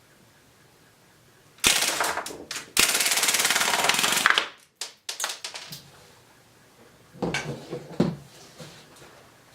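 Replica MP40 BB machine gun firing on full auto: a sharp shot, then a rapid, evenly packed burst of about a second and a half. A few duller knocks follow near the end.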